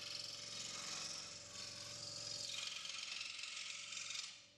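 DS460 scroll saw running, its blade stroking rapidly up and down through a workpiece with a steady hiss of cutting. It stops abruptly just before the end.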